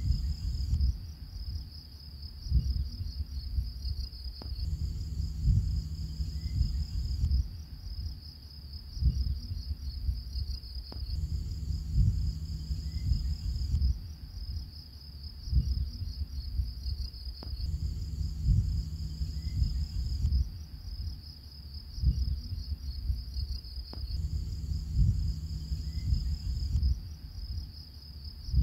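Looped background soundtrack: a steady high trill over low tones and thuds, the whole pattern repeating about every six and a half seconds.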